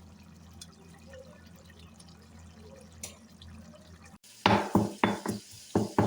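A faint low hum with a few light clicks, then after an abrupt cut a run of loud, sharp knocks of metal kitchen utensils, about three a second, each with a brief ring.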